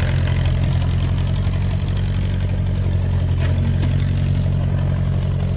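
1957 Ford 861 tractor's engine running steadily at low speed while it digs a trench, with a few faint clanks now and then.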